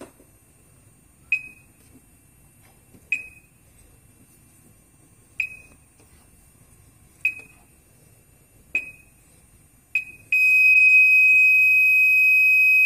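Gent fire alarm control panel beeping briefly at each keypad button press, six short high beeps, then its internal buzzer sounding a loud steady high tone for about two and a half seconds near the end.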